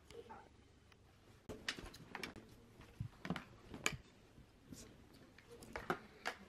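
Faint rustling of clothes with small clicks and knocks of hangers against a plastic shopping basket as garments are handled. The clicks come in a cluster from about a second and a half in and again near the end.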